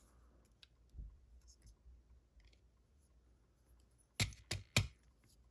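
Small clicks of tools and pins being worked out of a Corbin master ring lock cylinder as it is taken apart: faint scattered ticks, then three sharp clicks in quick succession about four seconds in.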